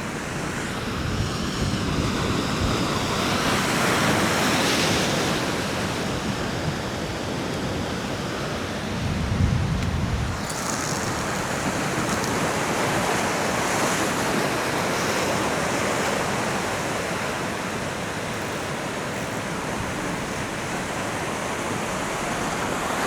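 Heavy ocean surf breaking and washing against sea rocks, a continuous rushing noise, with wind buffeting the microphone in a brief low rumble about nine seconds in.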